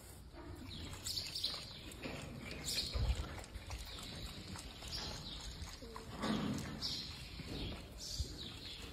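Quiet cattle-barn ambience: scattered bird chirps, a few knocks and handling rustles, and a short animal call about six seconds in.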